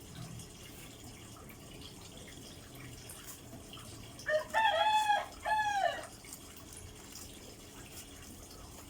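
A rooster crowing once, a call of about two seconds in three linked parts ending on a falling note, about four seconds in, over a faint steady hiss.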